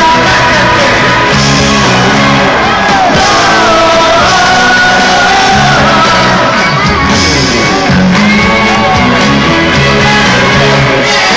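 A live pop-rock band plays a song with a sung melody over it, and the crowd's voices shout and sing along, recorded from among the audience.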